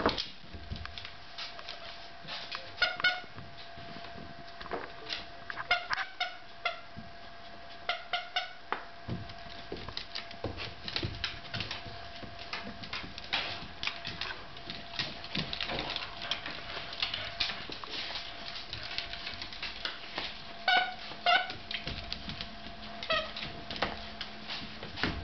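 Dogs playing with a squeaky plush toy on a hardwood floor: claws clicking and scrabbling on the boards, with short high squeaks a handful of times, several of them in quick pairs.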